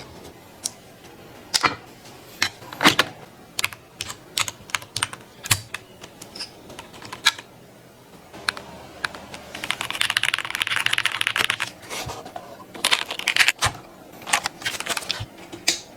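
Mechanical keyboard keys being pressed: scattered single clacks and short clusters, with a fast run of typing about ten seconds in.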